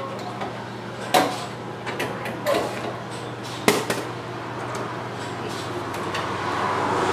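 Hinged flap doors of retro vending machines' serving hatches clacking shut as a plastic udon bowl is taken out, with two sharp clacks, one about a second in and one a little before four seconds, and lighter knocks between, over a steady machine hum.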